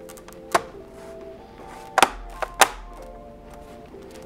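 Sharp plastic clicks from a Dell Chromebook 11 3110's bottom cover being snapped back into place and the laptop handled: one about half a second in, then three in quick succession about two seconds in. Soft background music plays under them.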